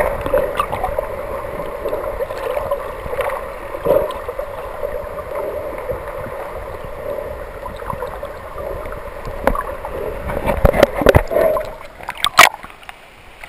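Muffled underwater audio through an action camera's housing: rushing, sloshing water with a steady hum. Several sharp knocks come about ten to twelve seconds in as the housed camera is handled near the surface.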